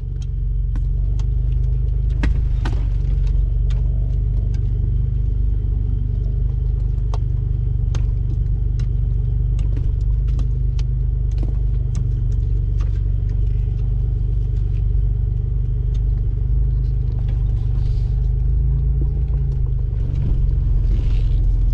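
Off-road 4x4's engine running steadily at low revs as it crawls over a rough dirt forest track, with irregular knocks and rattles from the body and suspension over the bumps.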